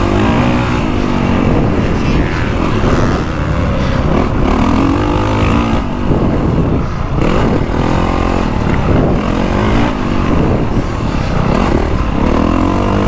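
2024 Honda CRF450R Works Edition's 450cc single-cylinder four-stroke engine being ridden hard on a motocross track, revving up and dropping back about six times as the throttle is opened and closed.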